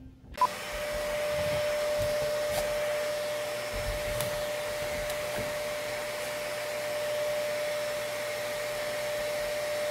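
Vacuum cleaner running steadily with a constant whine. It starts abruptly just after the start.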